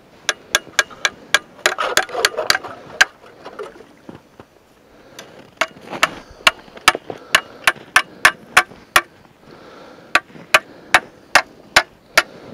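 A rapid series of sharp, loud taps, three to four a second, in runs broken by short pauses, with a rough scraping sound around two seconds in.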